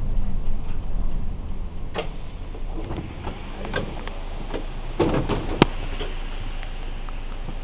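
City bus pulling up at a stop: low engine hum, a short hiss of air about two seconds in, then a string of clicks and clunks from the doors and fittings.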